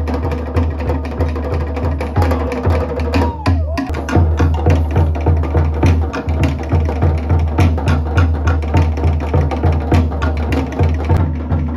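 Tahitian drum ensemble playing a fast, dense rhythm: sharp rapid strokes on wooden slit drums (to'ere) over a pulsing bass drum (pahu).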